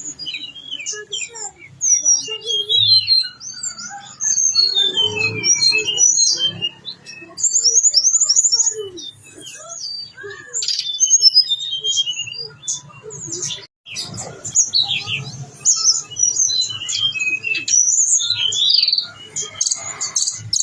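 Tledekan gunung songbird singing a long, rapid, varied song of high chirps, whistles and trills, run through with phrases copied from other birds' calls.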